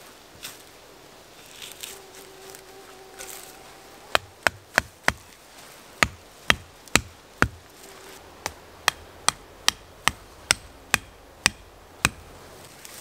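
A small hatchet striking wood in about twenty sharp blows, roughly two a second, in short runs with brief pauses, beginning about four seconds in.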